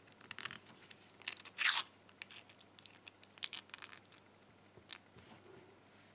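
Small metal clicks, ticks and scrapes from handling pin-tumbler pins and springs while reloading a gutted padlock's cylinder, with one longer scrape about a second and a half in.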